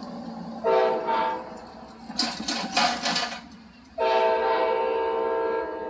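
Amtrak locomotive's multi-chime air horn sounding for a grade crossing: two short blasts about a second in, then a long blast from about four seconds in that is still sounding at the end. A few sharp clicks come between the blasts.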